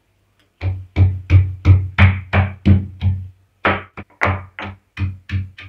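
Stone pestle pounding garlic cloves and ginger in a small stone mortar: steady thuds, about three a second, with a short pause midway.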